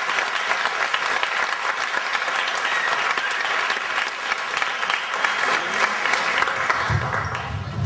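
Audience applauding: many hands clapping at once, dying down near the end.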